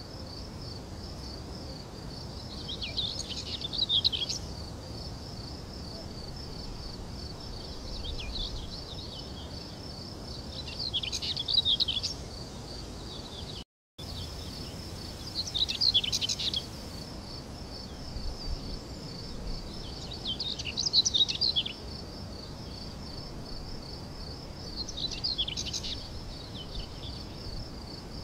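Birds chirping in short bursts every few seconds over a steady, high, pulsing insect trill, with a brief drop-out about fourteen seconds in.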